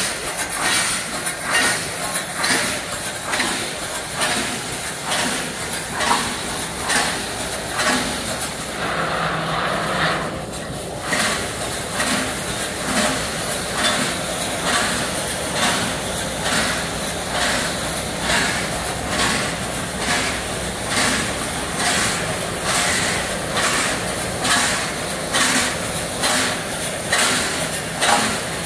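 Wire mesh welding machine cycling, with sharp clacking strokes at an even rhythm of about two a second over a steady mechanical running noise. The rhythm breaks briefly about ten seconds in.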